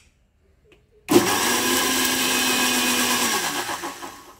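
Electric mixer grinder blending a spice paste with curd. It starts abruptly about a second in, runs steadily, then winds down with falling pitch near the end as it is switched off.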